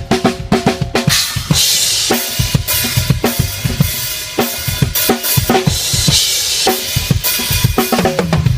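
Drum kit played in a busy groove, with bass drum and snare in quick strokes. Cymbal crashes wash over the beat about one and a half seconds in and again about four seconds in.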